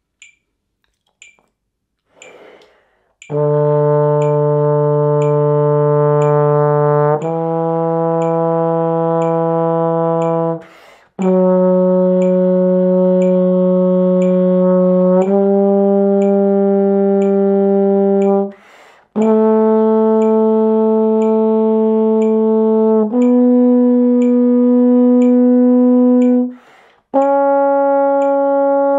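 Tenor trombone playing an ascending D major scale in slow whole notes of about four seconds each (D, E, F sharp, G, A, B, C sharp), with a short break after every second note. A metronome ticks once a second at 60 bpm throughout, counting in alone for about three seconds before the first note.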